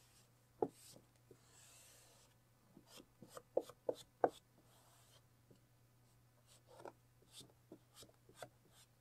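Hand squeegee rubbing across adhesive film on a car's rocker panel: soft swishes at first, then a run of small clicks and taps as the squeegee and film are worked, loudest about three to four seconds in.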